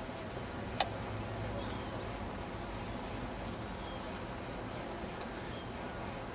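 Outdoor ambience: a steady background hiss with a scatter of faint, short high chirps, and one sharp click a little under a second in.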